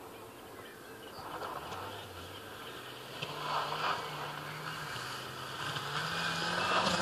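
Škoda Felicia's engine running in the distance as the car drives across a grassy field, its revs stepping up and down, growing louder toward the end as it comes closer.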